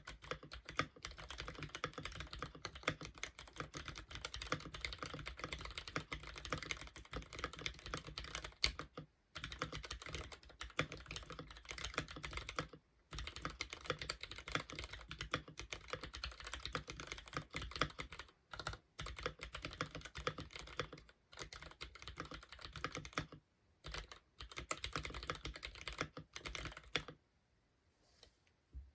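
Typing on a Womier K66 mechanical keyboard fitted with Gateron Milky Black linear switches: rapid, continuous keystrokes with a few brief pauses.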